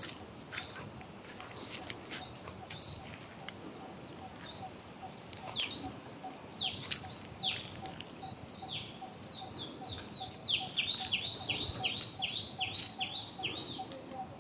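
Small birds chirping in the trees: many short, high chirps that sweep downward, coming in quicker runs near the end. Under them a faint low note pulses about three times a second.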